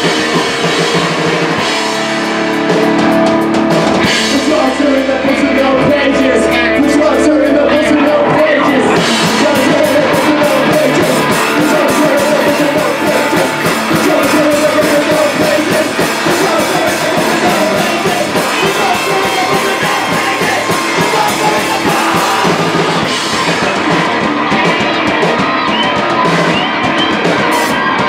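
Live punk rock band playing loud: electric guitar, bass guitar and drum kit, with a singer's vocals over them.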